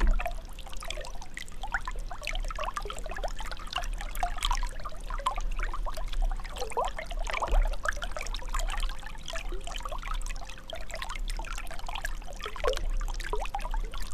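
Water trickling and bubbling continuously, with many small gurgles, over a steady low rumble.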